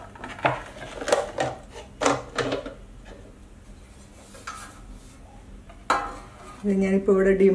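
Metal loaf tin clinking and knocking a few times against a ceramic plate as it is lifted off a turned-out block of wheat halwa. One more knock comes around six seconds in, and a voice starts near the end.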